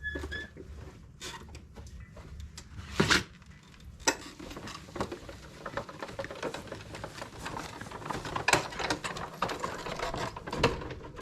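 Irregular handling noises: scattered clicks, knocks and rustling, with one sharp louder knock about three seconds in.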